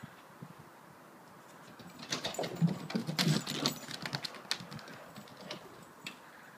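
A small dog's paws and claws clicking and pattering on wooden decking as it runs, a quick run of taps starting about two seconds in and dying away after about four and a half seconds.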